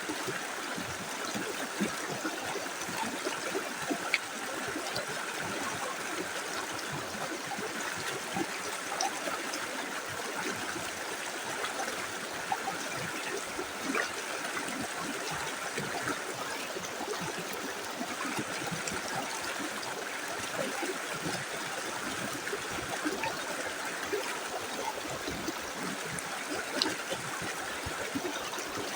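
A small river flowing steadily over stones, a continuous rush of water with small trickles and splashes scattered through it.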